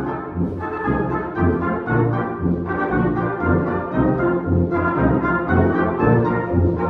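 Orchestral music led by brass, with French horn and trombone playing over a moving bass line.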